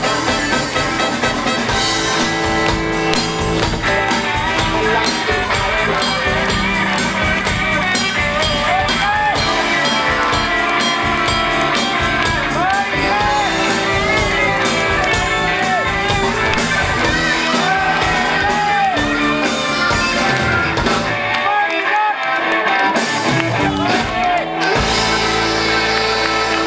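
Live rock band playing with drums, bass, electric guitars and keyboard. In the middle an electric guitar lead plays bending notes over the band. Near the end the bass and drums drop out for a few seconds before the full band comes back in.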